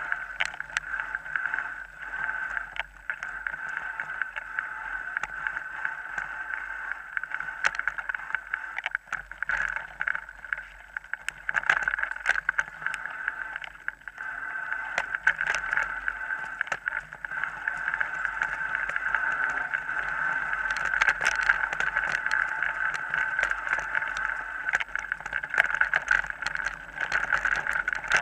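Mountain bike rolling fast over a rough dirt forest track, picked up by a camera mounted on the bike or rider: a steady rush of tyres and wind with frequent knocks and rattles over bumps.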